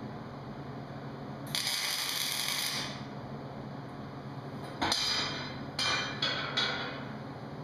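MIG welder tacking the steel bars of a gate frame: one crackling weld of about a second and a half, then four short tacks in quick succession near the end.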